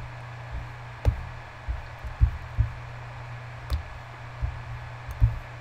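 Irregular clicks and soft knocks from a computer mouse being clicked and scrolled on a desk, over a steady low hum.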